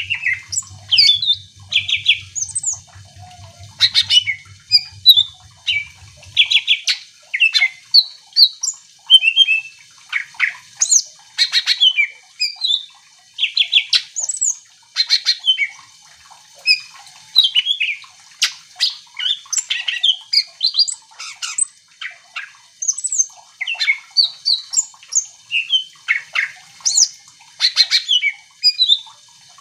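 Cucak ijo (green leafbird) singing vigorously and without pause: quick runs of sharp chirps, whistled notes and short rising and falling glides, in short phrases one after another.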